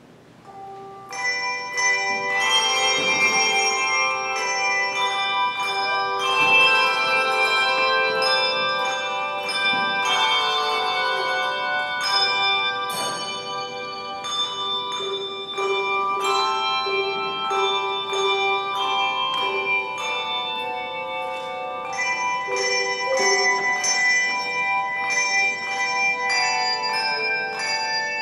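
A children's handbell choir playing a piece: handbells struck singly and in chords, their tones ringing on and overlapping. The playing begins about a second in, after a brief hush.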